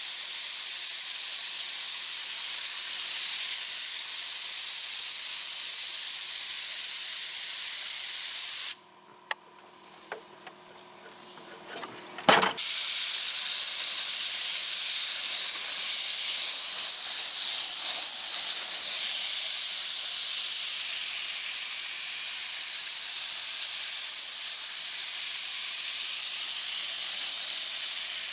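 Paint spray gun hissing steadily as it sprays thin wood stain onto siding. About nine seconds in the hiss cuts off for roughly four seconds, with a few small clicks and a sharp knock, then starts again.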